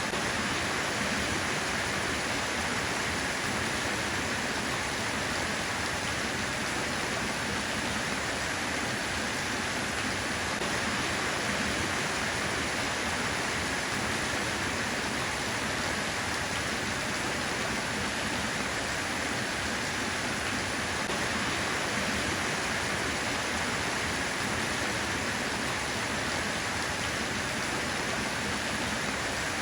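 Steady rain falling, an even continuous hiss of many drops with no single drops standing out.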